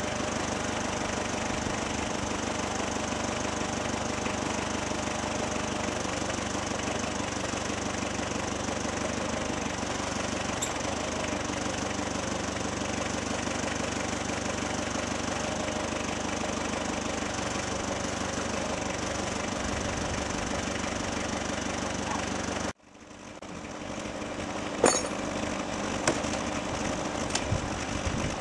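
A combustion engine running steadily. About two-thirds of the way through the sound cuts out abruptly, then returns, with a few sharp metallic clicks or knocks near the end.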